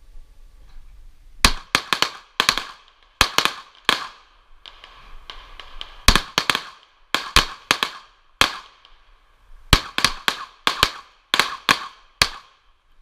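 Pistol fired in rapid strings of shots, with short pauses between the groups, beginning about a second and a half in. Each shot is a sharp crack with a short echo.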